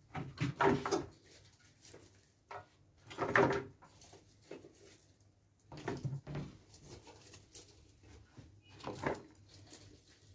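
Chopped vegetables being pushed by hand into the neck of a large plastic jug: several irregular bouts of rustling and hollow plastic knocks, with quieter stretches between.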